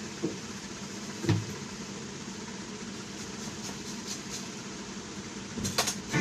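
Steady low room noise with a few light knocks and clicks from hand tools and objects handled on a counter: one knock about a second in and a short cluster of clicks near the end.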